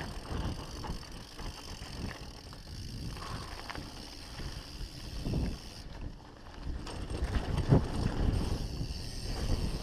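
Norco One25 hardtail dirt jump bike rolling fast down a rocky dirt trail: tyres rumbling over loose dirt and stones and the bike rattling, with wind buffeting the microphone. A few harder knocks from hits on the rough ground, the loudest about three quarters of the way through.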